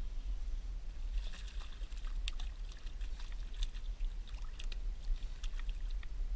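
A hooked spotted bay bass splashing and thrashing at the water surface as it is reeled in: a scatter of sharp splashes over several seconds, over a steady low rumble.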